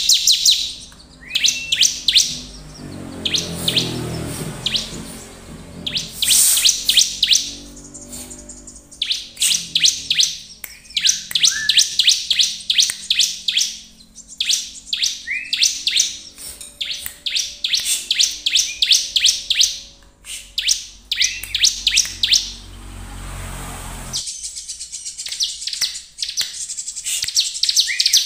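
Bar-winged prinia (ciblek) singing vigorously: loud bursts of rapid, high, sharp chirping notes, phrase after phrase with short pauses between.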